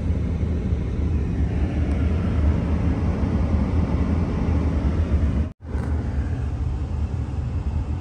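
Steady low rumble inside a car cabin: the car's engine running with the heater blowing on full. The sound drops out for an instant a little past halfway, at an edit.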